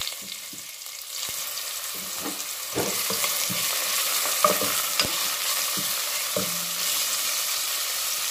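Sliced onions and chopped garlic sizzling in hot oil in a pot, stirred with a spatula that knocks against the pot now and then. The sizzle grows louder about a second in.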